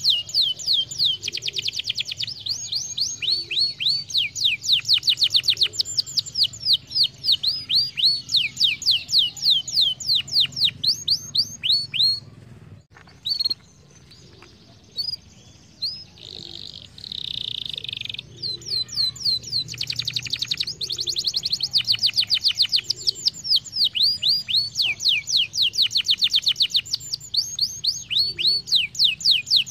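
Domestic canary singing in fast trills of rapidly repeated falling notes, with a short break about halfway through before the song picks up again.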